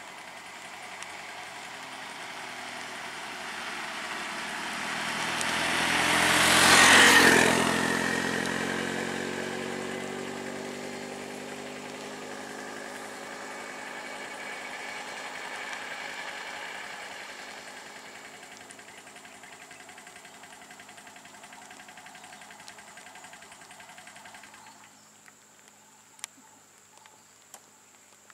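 A motor vehicle's engine passes close by, growing louder to a peak about seven seconds in and dropping in pitch as it moves away. After that a quieter engine keeps running and fades out near the end, over a steady high-pitched tone.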